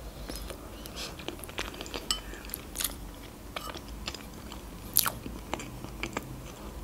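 Chewing a bite of layered sponge cake: soft, scattered wet mouth clicks and smacks, with a sharper click about five seconds in.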